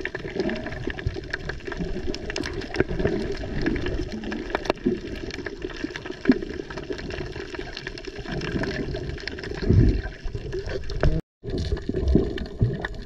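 Sea water sloshing and splashing, with many scattered small knocks and clicks and a few heavier surges. The sound cuts out for a moment about eleven seconds in.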